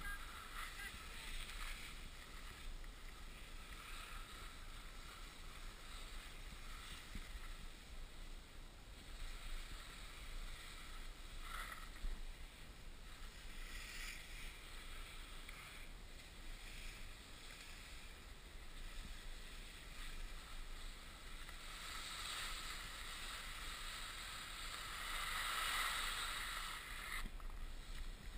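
Skis sliding and scraping over snow, a steady hiss with wind rumbling on the microphone; the hiss grows louder for a few seconds near the end, then drops off suddenly.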